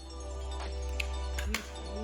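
Background music: sustained chords over a deep bass note, with the bass shifting about halfway through and a few light ticks on top.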